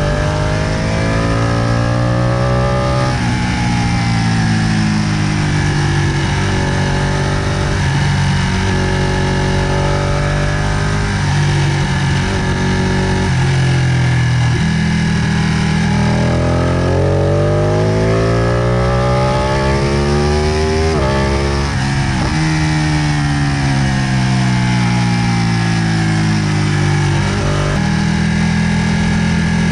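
Ducati 959 Panigale Corse's 955 cc Superquadro L-twin on its stock exhaust, heard from on board while lapping a track. The engine note climbs in pitch under acceleration and falls away as the bike slows for corners, several times over.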